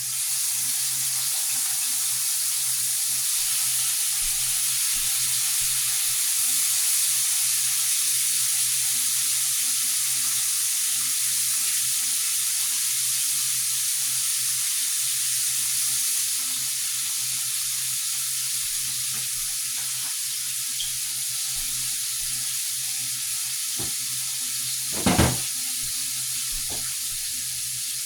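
Raw shrimp frying in a hot pan, a steady sizzle, with a low hum underneath. Near the end a utensil clanks sharply once against the pan.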